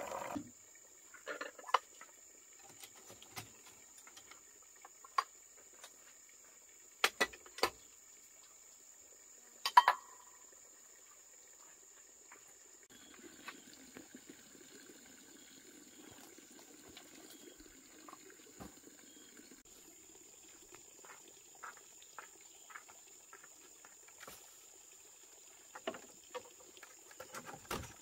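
Scattered light knocks and clinks, the loudest a short ringing clink about ten seconds in, over a faint steady high-pitched whine.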